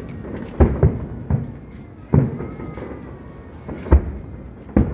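Aerial firework shells bursting overhead: about six loud bangs at irregular intervals, each trailing off into a short echo.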